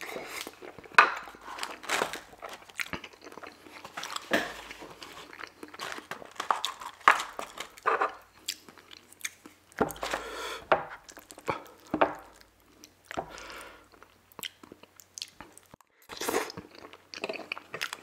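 Close-miked chewing of gravy-soaked poutine fries and cheese curds: irregular bites and sharp mouth clicks throughout.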